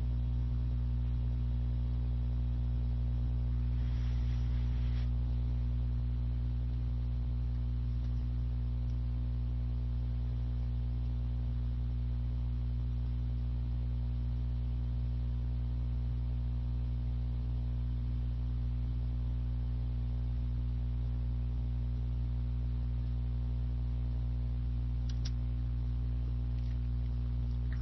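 Steady electrical mains hum: a low, unchanging buzz with a stack of overtones and no other sound.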